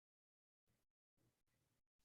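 Near silence: a pause in a recorded online call, with only extremely faint background noise.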